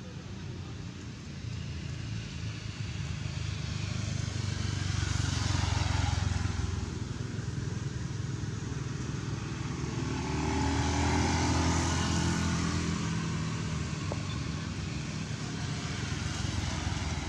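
Motor vehicles passing by, their engine noise swelling and fading twice.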